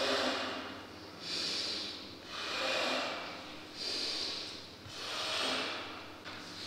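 A man breathing loudly and deliberately in and out, about five breaths, each about a second long, alternating between a hissier breath and a fuller, lower one. It is a demonstration of the breathing for overtone singing, which he calls the opposite of normal breathing.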